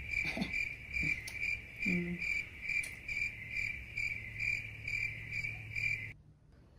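Cricket chirping sound effect: a high chirp repeating evenly a little over twice a second, cutting off suddenly about six seconds in. It is the comedy cue for an awkward silence.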